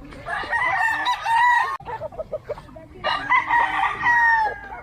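Roosters crowing: two long crows, the first cut off abruptly a little under two seconds in, the second starting about three seconds in, with shorter calls between.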